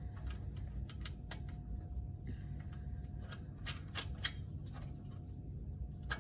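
Light clicks and short scrapes of small screws and metal hardware being handled and fastened by hand while a replacement screen is mounted, a few sharper clicks in the middle, over a low steady hum.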